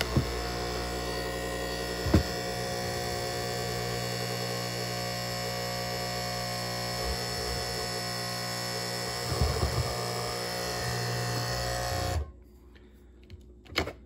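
Nespresso coffee machine's vibratory water pump running with a steady electric buzzing hum, then cutting off abruptly about 12 seconds in. The pump is being primed as the water tank is set gently on its base to clear an air lock. A few light knocks of the plastic tank against the base come near the start, about two seconds in and around nine seconds in.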